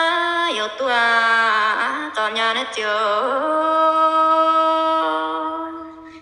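A voice singing a line of a slow Iu Mien folk song, holding long level notes; the melody drops lower about half a second in, climbs back a little after three seconds, and ends on a long held note that fades out.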